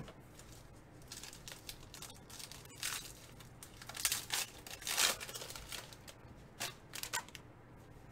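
Gold foil wrapper of a Panini Gold Standard basketball card pack being torn open and crinkled, in a series of short rips and rustles.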